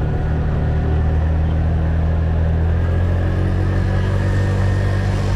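Motorcycle engine running at low speed, a steady low engine note heard from on the bike, shifting slightly about halfway through.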